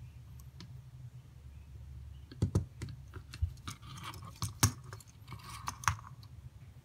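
Hard plastic kit parts knocking and clicking as a small assembled plastic model is handled and turned over, a string of sharp taps and clatter starting about a third of the way in, with the loudest knocks near the middle and near the end.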